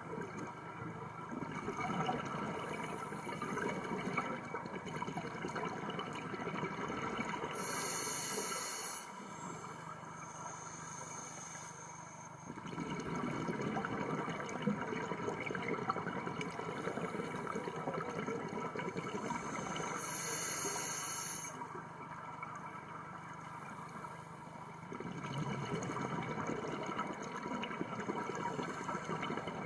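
Scuba regulator breathing heard underwater: long stretches of bubbling exhalation alternating with quieter gaps, and two brief high hisses of inhalation about eight and twenty seconds in.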